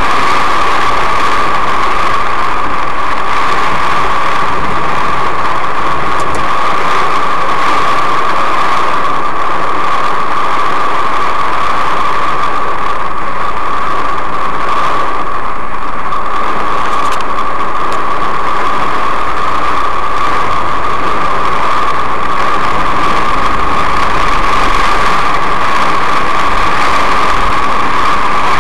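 Steady noise inside a car driving through heavy rain: rain on the windshield and body blended with road and engine noise, an even unbroken hiss with no distinct strikes.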